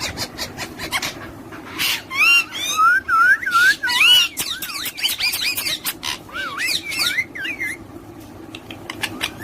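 Pet parrots chirping and whistling in quick notes that slide up and down, thickest in the middle of the stretch, with scattered sharp clicks.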